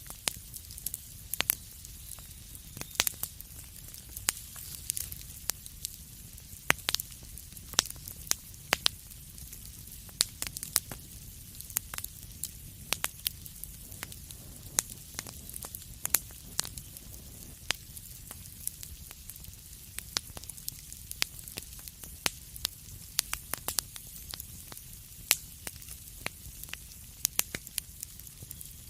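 Wood fire crackling in a fireplace: a steady low rumble and hiss with sharp irregular pops and snaps, several a second.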